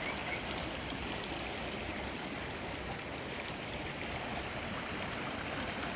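Stream water flowing and splashing steadily.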